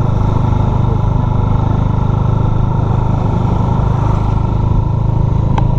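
Motor scooter ridden along a road: its small engine running steadily under way, mixed with a steady rumble of wind and road noise.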